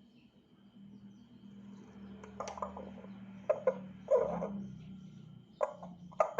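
African grey parrot vocalizing: a series of sharp clicks, several in quick pairs, and a couple of short calls, over a steady low hum.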